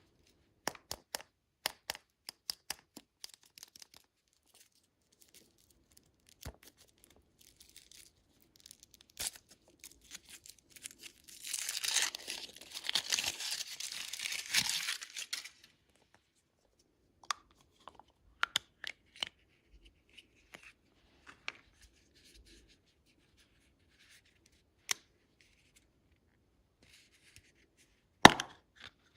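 Candy wrapper being torn and crinkled for about four seconds midway, among scattered sharp clicks and taps, with one louder click near the end.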